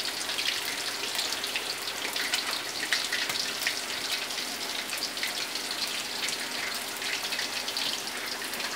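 Batter-coated small mairo fish deep-frying in hot oil in an aluminium wok, just turned over. The oil gives a steady sizzle with dense, fine crackling.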